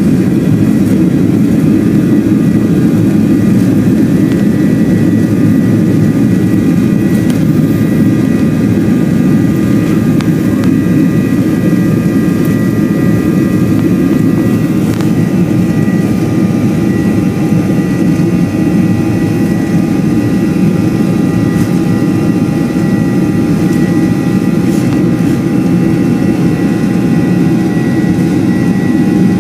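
Cabin noise of a Boeing 737-900ER on the runway: its CFM56-7B jet engines running with a loud, steady rumble and a thin whine above it, heard from a window seat over the wing.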